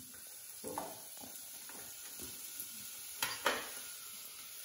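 Chopped onion being scraped off a wooden chopping board into a hot pan with a small scraper: a run of short scraping strokes, then two sharp knocks about three seconds in, over a faint sizzle from the pan.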